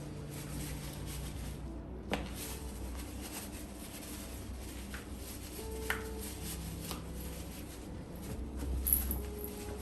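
Chiropractic treatment handling over a steady low room hum, with a few sharp isolated clicks: one about two seconds in, two more around six and seven seconds, and the loudest near the end.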